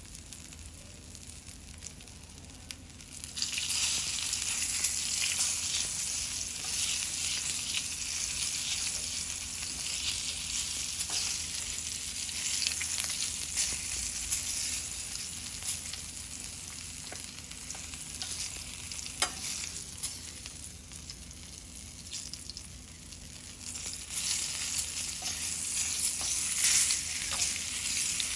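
Kingfish fillets sizzling in hot olive oil in a stainless steel frying pan. The sizzle jumps louder about three seconds in, swells again near the end, and a few clicks of metal tongs against the pan come through it.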